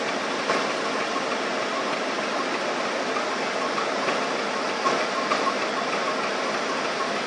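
Steam locomotive hissing steadily as steam escapes low at its front end, with a few light knocks.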